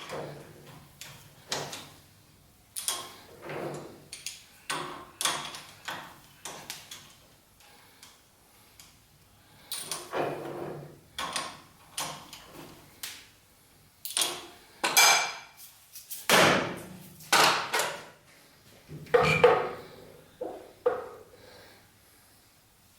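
Irregular metallic knocks and clanks of steel parts being handled and set down on a workbench, some ringing briefly.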